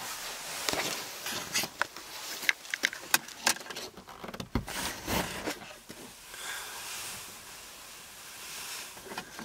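Camera handling noise: a run of irregular clicks, knocks and rubbing as the camera is gripped and repositioned, settling into a quieter steady hiss for the last few seconds.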